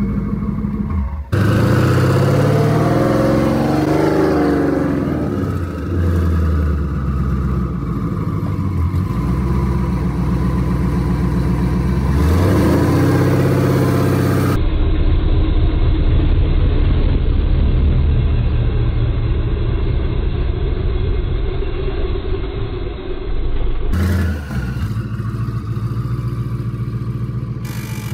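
Vehicle engine revving, its pitch rising and falling a few times, then running steadily with an even pulse. The sound changes abruptly at several edit cuts.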